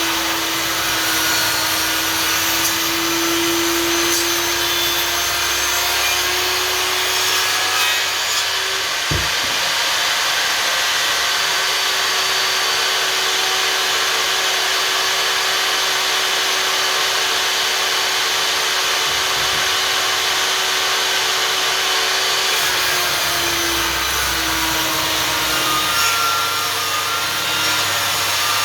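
Einhell table saw running and cutting through thick wooden boards, a steady loud whirr whose motor tone shifts in pitch a few times as the load on the blade changes. A single sharp click about nine seconds in.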